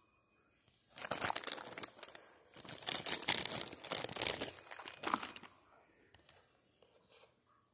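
Thin clear plastic packaging bag crinkling and crackling as it is handled, for about four seconds starting about a second in.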